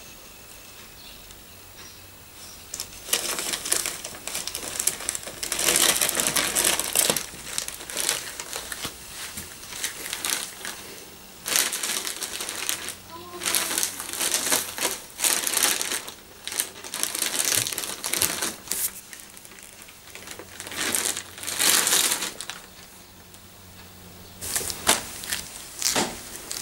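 A stiff plastic bag crinkling and crumpling in repeated bursts as a cat pushes its head into it and wriggles inside it. The rustling starts about three seconds in and comes in bursts with short pauses.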